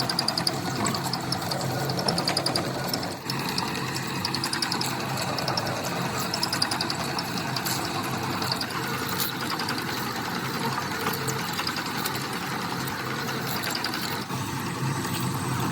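Workshop machine running steadily, a low hum under a rapid mechanical ticking.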